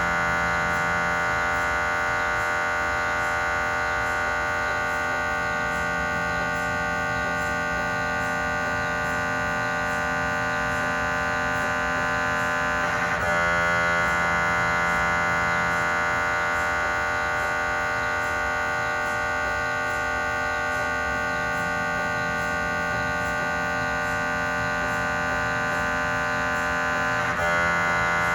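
GE 3T Twinspeed MRI scanner running a cardiac scan sequence: a steady electronic buzz of many stacked tones from the gradient coils. It breaks briefly into a rapid stutter about halfway through and again near the end.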